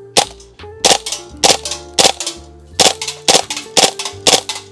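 KRYTAC Kriss Vector gas blowback airsoft gun firing eight single shots, about two a second, each a sharp crack.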